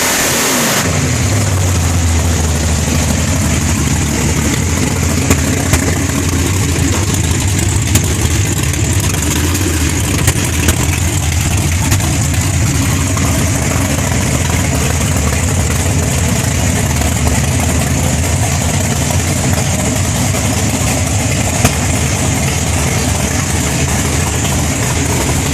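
Chevrolet Nova's engine settling from a rev within the first second, then idling steadily, with constant hiss on the recording.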